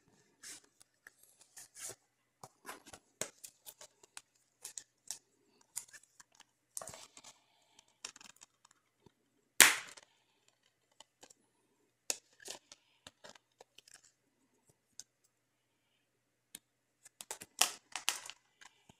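Plastic disc cases and their card inserts handled by hand: scattered clicks, taps and rustles. One sharp click about halfway through is the loudest sound, and a quick run of clicks and rustling comes near the end.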